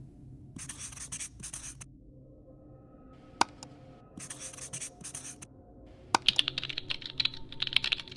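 Outro animation sound effects: a marker scratching across a surface in several short strokes, one sharp click a little over three seconds in, then a fast run of keyboard-typing clicks in the last two seconds.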